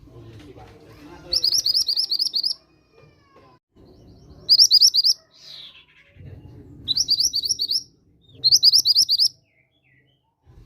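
Mantenan gunung (mountain mantenan) song played as a lure: four short bursts of rapid, high-pitched chirping notes, each lasting about a second, with quieter gaps between them and a faint low background underneath.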